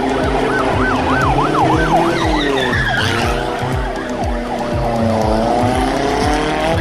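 A police-style siren yelps in a fast up-and-down warble for the first few seconds, then slows into longer falling and rising glides. Under it a drifting car's engine runs and its tyres squeal.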